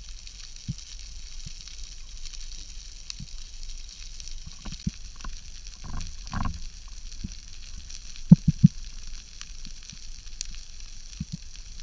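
Underwater sea ambience heard through a camera's waterproof housing: a steady crackling hiss. A muffled rush comes about six seconds in, and three quick low knocks just after eight seconds are the loudest sounds.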